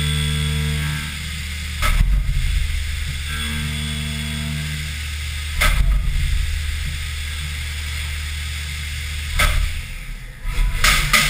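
Haas VF-3SS CNC vertical mill cutting aluminium with flood coolant: a steady low machine hum and the hiss of coolant spray, with a pitched cutting tone that comes and goes. A few sudden loud bursts of noise come about every four seconds, and the low hum drops away near the end.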